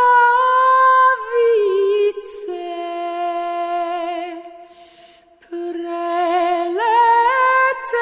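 A woman singing a slow song unaccompanied, in long held notes with vibrato. She breaks briefly for breath about five seconds in, then comes back on a rising phrase.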